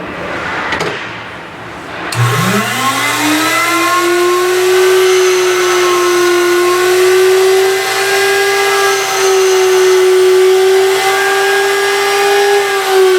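Skate-sharpening machine (Incredible Edger) motor switching on about two seconds in, its whine rising as the grinding wheel spins up to speed, then running at a steady pitch. Some faint handling noise comes before it starts.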